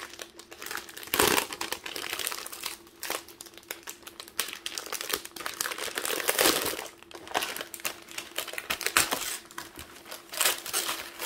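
Paper wrapping being unfolded and pulled open by hand, crinkling in irregular bursts, loudest about a second in and again around six and a half and nine seconds.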